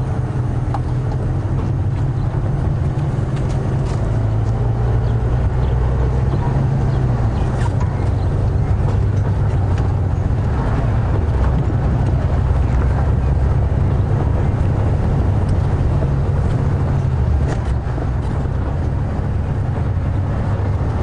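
Safari game-drive vehicle's engine running as it drives along a bush track: a steady low rumble with road noise over it.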